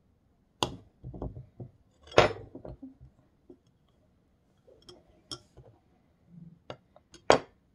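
Metal spoon and plastic fork clinking and tapping against a ceramic plate and mug as butter is dabbed onto them: a scatter of sharp clinks, loudest about two seconds in and again near the end, with lighter taps between.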